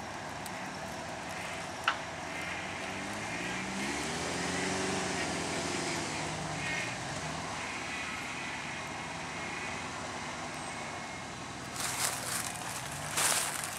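1989 Ford Ranger 4x4's engine pulling the truck up a steep dirt hill under load, its revs rising and falling. There is a sharp click about two seconds in and two short bursts of noise near the end.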